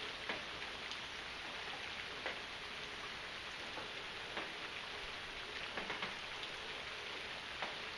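Steady rainfall: an even hiss of rain with louder single drips at irregular intervals, several of them close together about six seconds in.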